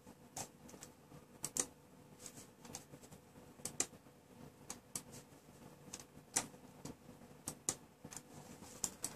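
Irregular clicking from operating a laptop while setting up an SDR receiver program: over a dozen sharp single clicks spaced unevenly, over a faint steady hum.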